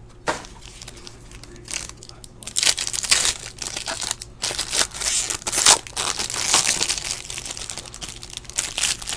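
Foil wrapper of a Panini Infinity football card pack being torn open and crinkled by hand: irregular bursts of crackling and tearing, busiest in the middle.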